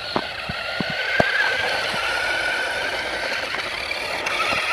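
Remote-control truck's electric motor whining steadily as it drives, its pitch wavering slightly, with a few sharp ticks and clatters from gravel in the first second or so.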